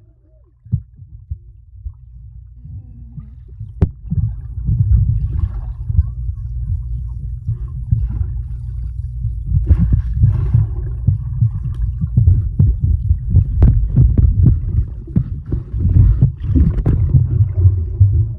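Muffled underwater sound as heard by a submerged camera: low rumbling and thumping of water churned by swimmers kicking, with bubbles. It is fairly quiet for the first few seconds, then grows louder and busier with many short knocks.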